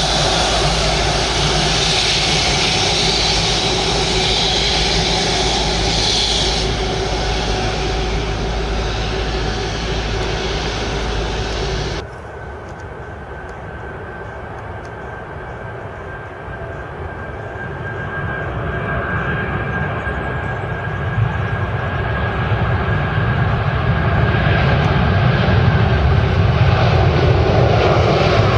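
Boeing 777-300 jet engines: loud turbofan noise with a high whine, which drops away partway through. About 12 s in the sound cuts off abruptly, and a lower, more distant engine rumble follows, building steadily as the twin-engine jet powers up for its takeoff roll.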